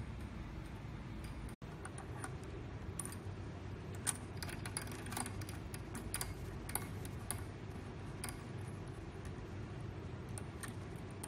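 Scattered small metallic clicks and taps as a steel cutter head is fitted onto the coiled spring cable of a drum drain cleaning machine, the clicks thickest in the middle, over a steady low background hum.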